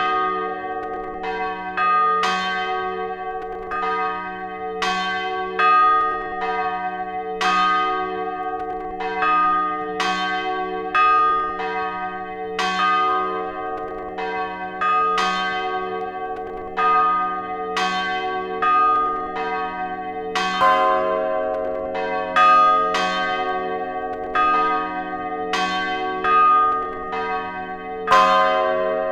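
Several church bells pealing together, struck one after another in quick, uneven succession, roughly one to two strikes a second, with their long hum ringing on underneath.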